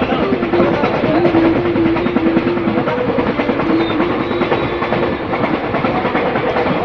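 Passenger express train running: a continuous rattle and clatter of the coach and its wheels on the rails, with a faint wavering tone over it.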